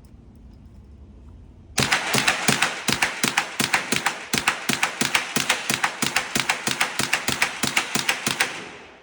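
Rapid .22 LR gunfire: a long string of sharp shots, about six or seven a second, starting about two seconds in and stopping near the end.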